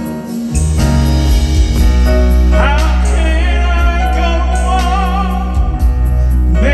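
Live soul ballad played by a band with grand piano, drums and keyboards, a deep sustained bass line entering about half a second in. A male lead singer's voice slides up about two and a half seconds in and holds wavering notes over the band.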